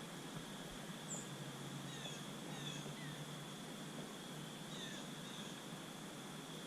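Small birds chirping, a few short falling chirps, over a faint steady high-pitched whine and hiss.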